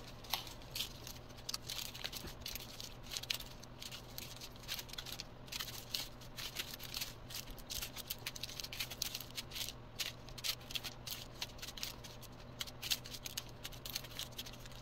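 Small plastic bags of diamond-painting resin drills being handled and sorted: a dense run of quick crinkles and rattles of the beads in their bags, over a faint steady hum.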